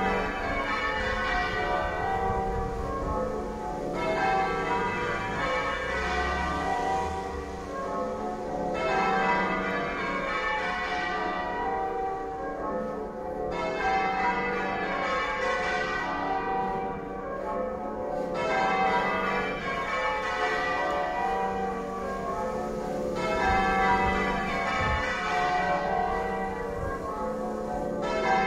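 A ring of church bells rung half-muffled in call changes: the bells strike one after another in continuous rounds, bright open strokes alternating every four to five seconds with duller muffled ones, the echo effect of half-muffled ringing for mourning.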